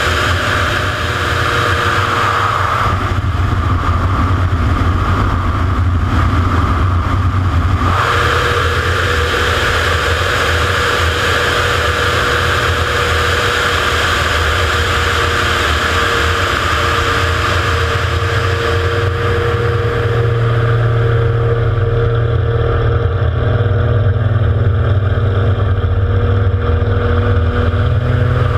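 Single-engine aerobatic propeller plane's piston engine and propeller running steadily in flight, with heavy wind rush over the wing-mounted microphone. The engine note grows a little louder in the last third.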